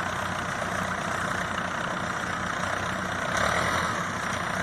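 Snowplow truck's engine running steadily while the truck is stuck in deep snow, getting a little louder for a second or so about three seconds in.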